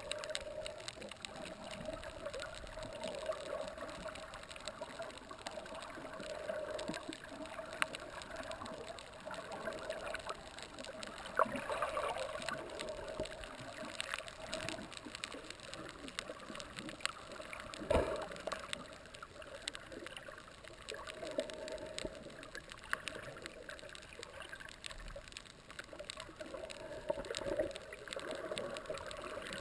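Underwater reef ambience picked up by a submerged camera: a steady wash of water noise with many scattered sharp clicks and crackles, and one louder knock about 18 seconds in.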